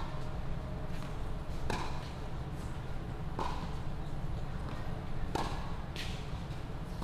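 Tennis ball rally on a hard court: sharp pops of the ball off strings and court, about one every one and a half to two seconds, the sharpest near the end as the near player strikes. A steady low rumble runs underneath.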